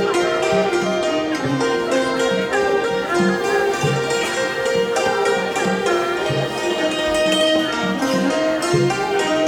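Thai classical ensemble music played live: a khim, the Thai hammered dulcimer, struck with two mallets in quick running notes, together with a bowed string line and a steady pulse of low notes about twice a second.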